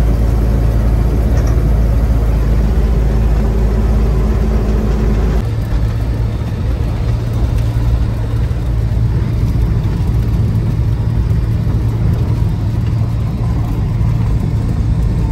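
UAZ-452 'Buhanka' van's engine running under way, a steady low drone whose note shifts higher about five seconds in.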